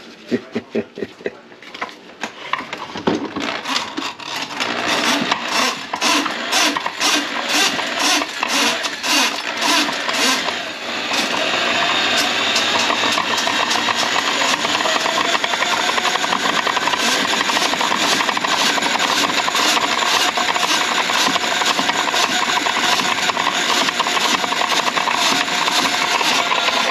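Electric drain-cleaning machine running its cable into a kitchen sink drain line clogged with grease. It starts with a rhythmic clatter of quick knocks for about the first ten seconds, then settles into a steady, even run.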